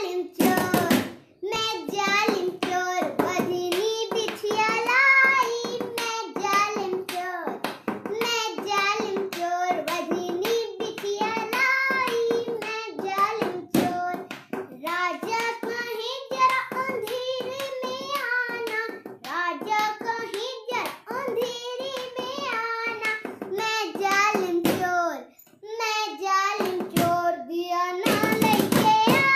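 A young girl singing an Awadhi folk song solo, in short sung phrases, with a brief pause about 25 seconds in.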